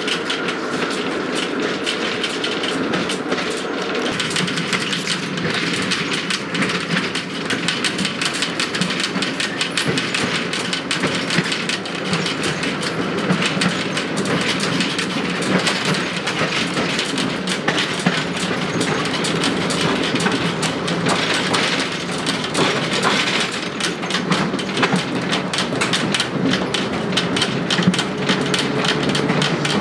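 An RVZ-6M2 tram running along the track, heard from inside the passenger car: steady wheel-and-rail rumble with constant fine clattering.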